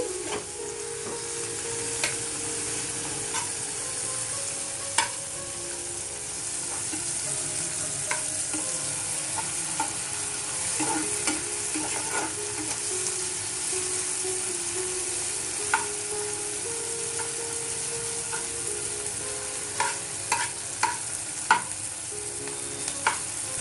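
Chopped onions, green chillies and tomatoes sizzling steadily in hot oil in a frying pan, stirred with a spatula that now and then clicks and scrapes against the pan.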